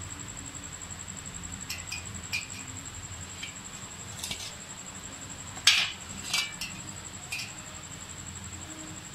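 A metal spoon clinking and scraping against an embossed metal platter while dough is scooped out: a scattered string of about eight light ringing clinks, the loudest a little past halfway.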